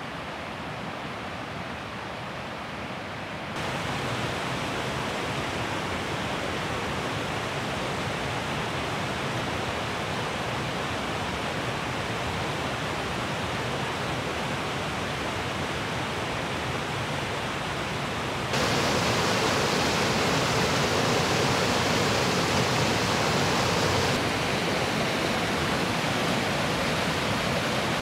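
Rushing mountain creek, white water tumbling over rocks: a steady rush that jumps louder abruptly about three and a half seconds in and again later, easing slightly near the end.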